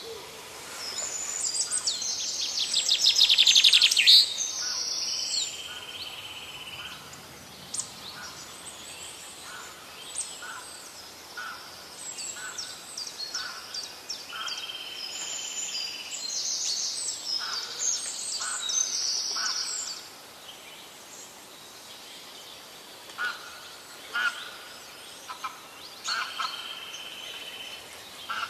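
Forest birds calling: high chirps and trills, loudest in a fast trill that builds up over the first few seconds. A steady high note about a second and a half long comes three times.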